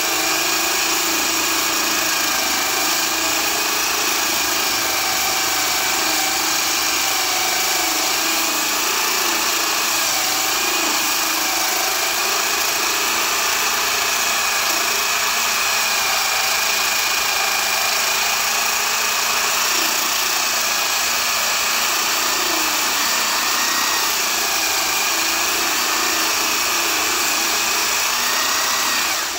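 Homemade core drill built from an angle grinder, running steadily as its core bit cuts into a concrete slab with water fed to the bit. It makes a continuous motor whine whose pitch wavers slightly under load.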